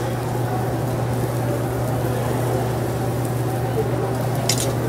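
Charcoal grill sizzling under a steady low hum and background voices, with a brief clatter of clicks near the end.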